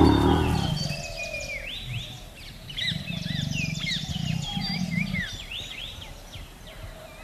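A tiger's roar trails off in the first second, then songbirds chirp and twitter, with a low growl from the tiger between about three and five seconds in.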